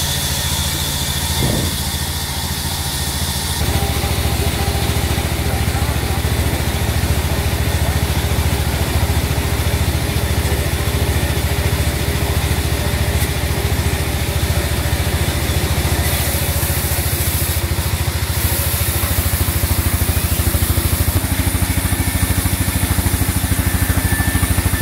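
Band sawmill running: a steady, low drone from the machine's drive with a fast, even pulse in it, growing louder about four seconds in.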